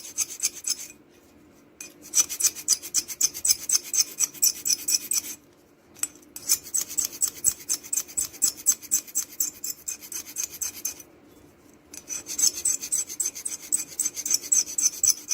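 A scalpel blade scraping old rubber gasket residue off the metal gasket seat of a vending-machine boiler. It goes in quick back-and-forth strokes, in four runs with short pauses between them. A faint steady low hum sits underneath.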